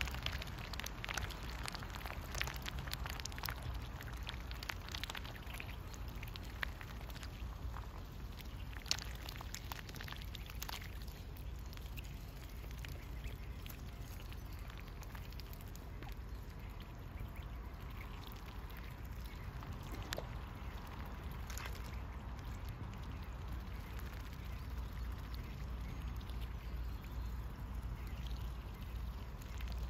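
Pekin and Khaki Campbell ducks dabbling in a shallow mud puddle, their bills sifting and slurping through water and mud. It is a run of small wet clicks and splashes, busiest in the first half.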